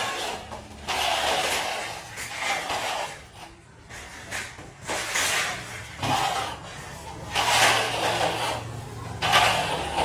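Long metal screed bar being drawn back and forth across freshly poured wet concrete, a gritty sliding scrape with each stroke, repeating every second or two.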